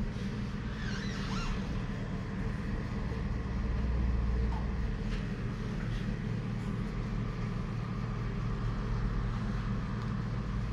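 A steady low mechanical hum with a light hiss from a home-built colour-mixing machine with pumps and nozzles, running evenly with no clear starts or stops.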